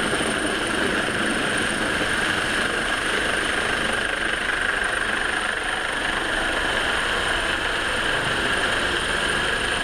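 Coastguard helicopter hovering low overhead during a winch lift, its rotors and turbines making a steady, unbroken din mixed with the lifeboat's engines running.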